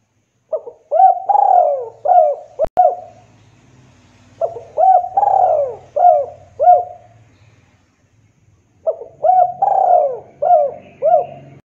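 Spotted dove (derkuku) cooing: three phrases of about five notes each, a couple of seconds apart, with one sharp click about two and a half seconds in.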